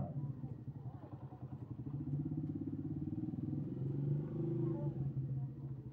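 A small engine running steadily, with an even low pulsing hum that swells slightly about four seconds in.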